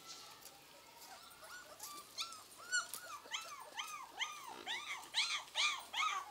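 Puppy whining: a run of short high whimpers, each rising and falling in pitch, starting about two seconds in and coming about three a second, growing louder near the end.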